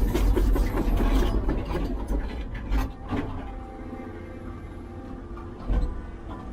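Heavy construction machinery at work: a dense grinding, scraping noise for the first second or so, then a running engine with clanks and knocks, and two thumps.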